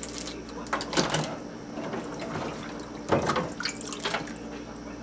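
A crab being cut with kitchen shears and pulled apart over a stainless steel sink: irregular wet cracking of shell and splashes of liquid into the sink, loudest about a second in and again about three seconds in.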